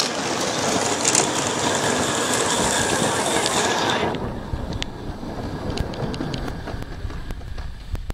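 Merlin Beck SM32 16mm-scale live steam locomotive running past with steam hiss and the mechanical rattle of its motion and wagons on the track. The hiss drops away about four seconds in, leaving fainter clicking of wheels on rail.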